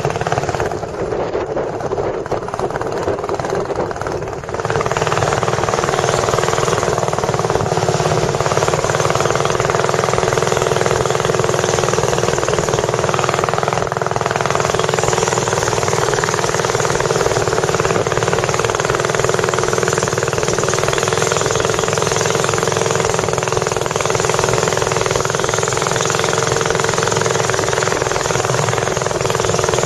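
A tourist boat's engine running steadily and loudly. It gets louder about four and a half seconds in as the boat throttles up and gets underway.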